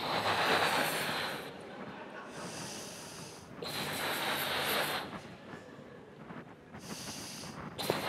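A person inflating a large rubber balloon by mouth: long breaths blown into it at the start, about four seconds in and again at the end, with shorter intakes of breath between them.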